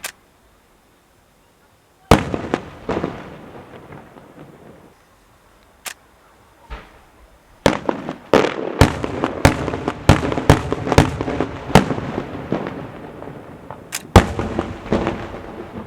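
Maltese festa fireworks going off: a loud bang about two seconds in, a single bang near six seconds, then a rapid run of many bangs, and another loud bang near the end, each with an echoing tail.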